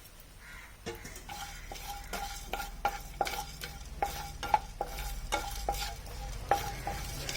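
Whole spices being stirred with a spatula as they dry-roast in a hot pan: an irregular run of scrapes and clicks against the pan, some with a short ring, over a light sizzle.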